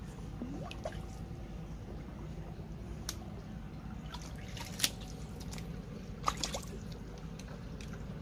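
Water dripping and trickling around a wire-mesh fish trap being set in shallow muddy water, with a few sharp ticks, the loudest about five seconds in.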